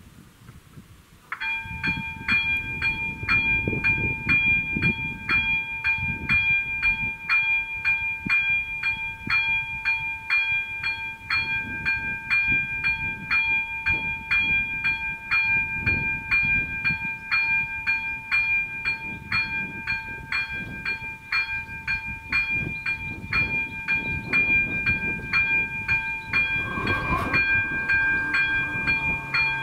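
Level-crossing warning bell of an AŽD 97 signal: an electronic bell ringing about twice a second, starting suddenly about a second and a half in and keeping on steadily. It warns that a train is approaching. Near the end there is a brief burst of noise as the barrier arms begin to lower.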